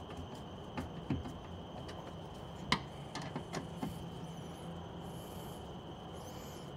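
A few light clicks and taps, the sharpest about two and a half seconds in, from hands and a screwdriver working a speaker's mounting screw into a car door's metal panel, over a steady low hum.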